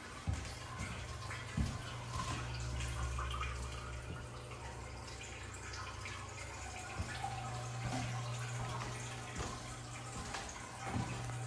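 Aquarium filter running: a light trickle of water over a low hum, with a few soft knocks.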